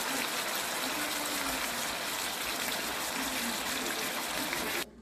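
Ground-beef hamburger patties frying in butter and oil in a pan, a steady sizzle that cuts off suddenly near the end.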